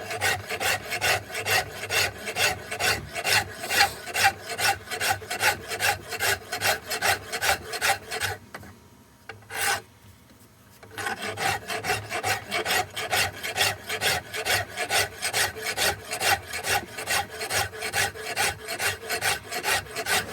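Wood rasp being drawn over walnut in quick, even strokes, about three a second. About eight seconds in the strokes stop, with a single stroke during the pause, then they resume at the same pace.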